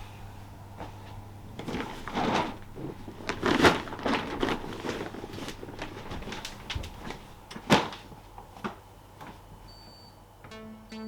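A string of knocks, bumps and clatters, with a sharp knock about three-quarters of the way through the loudest, over a steady low hum.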